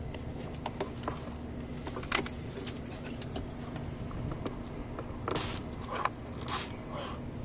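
Diesel fuel filter housing on a 2016 Toyota Hilux being unscrewed by hand: scattered short scrapes and clicks, then several longer rasping scrapes past the middle, over a steady low hum.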